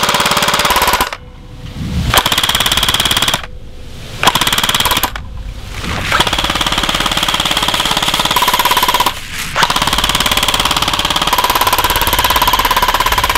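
Airsoft electric gun firing on full auto through a MadBull Noveske KX3 flash-hider amplifier, as a rapid rattle with a steady high whine. It fires in long bursts with short pauses: one burst is under way at the start, three more follow, and a fifth runs on at the end.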